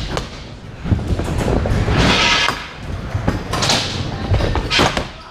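Scooter riding on skatepark ramps: the wheels rumble along, with several hissing scrapes, the longest about two seconds in and shorter ones near four and five seconds.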